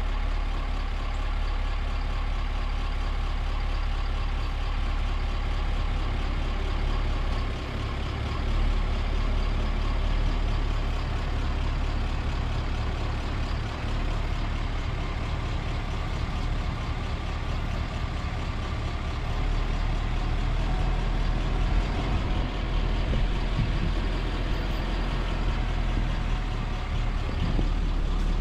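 Steady low rumble of an idling vehicle engine, with a dense chatter of a large flock of geese calling over it.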